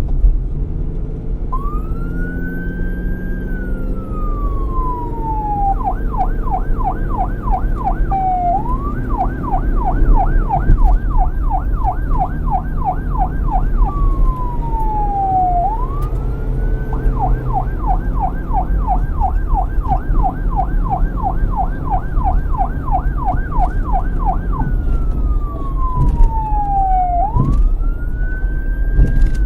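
Police car electronic siren alternating between a slow wail, which rises quickly and then glides down over a few seconds, and a fast yelp of about five sweeps a second, with a steady low rumble underneath.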